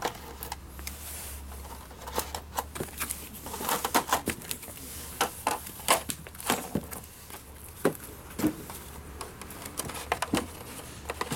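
Irregular clicks, taps and crinkles as multitool accessories (triangular sanding pads, plastic-wrapped sanding sheets and a metal blade) are handled and set into a hard plastic storage case tray. A steady low hum runs underneath.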